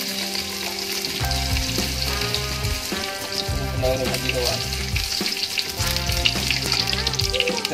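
Crushed garlic and dry red chillies sizzling and crackling in hot mustard oil in a kadai, stirred with a spatula.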